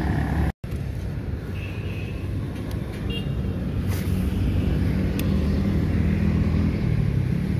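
Steady low rumble, cutting out completely for a moment about half a second in.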